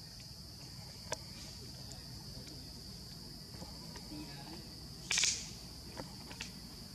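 Insects droning steadily at a high pitch in the forest. A few sharp snaps or clicks come through, and there is a brief, louder rustle about five seconds in.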